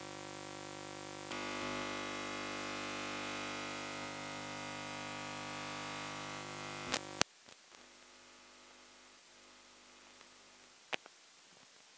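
Steady electrical hum and buzz with many overtones, like mains interference on an audio line, which cuts off with a sharp click about seven seconds in, leaving a faint hiss and a single click near the end.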